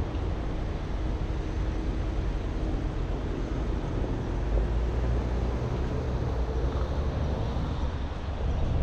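Car driving, with steady road noise and a low rumble.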